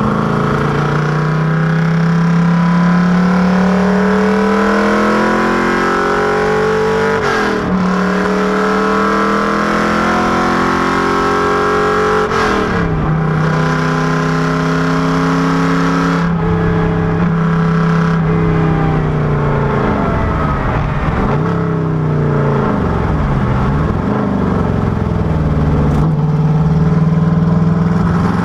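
FFR Cobra Daytona Coupé replica's V8 engine under hard acceleration, its note climbing steadily and dropping sharply at each upshift. Near the end it dips and rises twice in quick V-shapes, as on downshifts.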